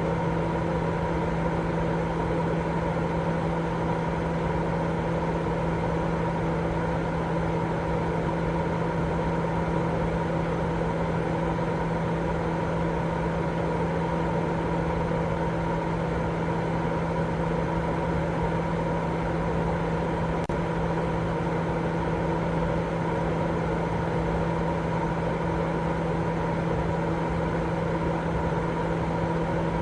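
Continuous sleep-aid white noise: a steady, dull hiss weighted toward the low and middle range, with a constant low hum running through it. It never changes.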